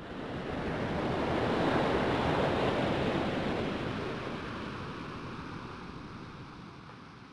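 Ocean surf: a rush of breaking water that swells over the first two seconds, then slowly fades away.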